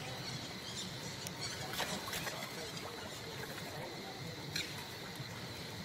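Faint outdoor ambience: a steady hiss with a thin high hum, broken by a few brief soft clicks about two seconds in and once more near the end.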